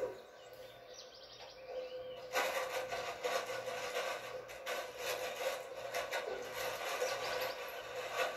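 Dishwashing at a sink, heard through a television's speaker: a sponge in rubber-gloved hands scrubbing and rubbing dishes, with light knocks of the dishware. It starts about two seconds in, after a short lull.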